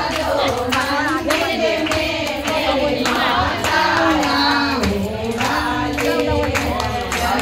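A woman sings a Hindi devotional bhajan to the goddess Durga into a microphone, and a group claps along in time.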